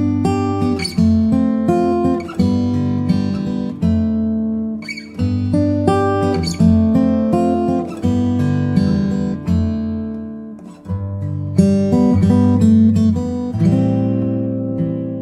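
Background music played on acoustic guitar: plucked notes and chords that each ring out and fade.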